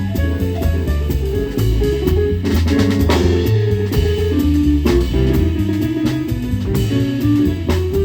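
A jazz quartet playing live: a quick run of short pitched notes over a steady bass line, with drum kit and cymbal strokes throughout.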